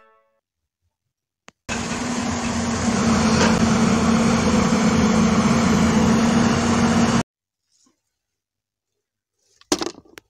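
Diesel engine of a Mitsubishi dump truck running, a steady noisy drone that starts about two seconds in and cuts off suddenly about five seconds later. A few light clicks near the end.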